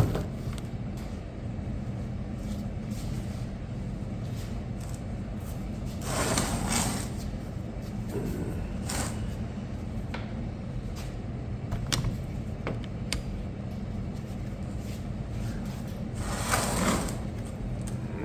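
Metal scraping and clunks as a heavy transmission case is turned over and worked on, twice rising to a loud rasping clatter lasting about a second, with a few sharp clicks between, over a steady low hum.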